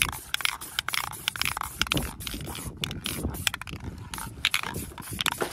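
Aerosol spray-paint can hissing in short, repeated bursts, with quick clicks in between.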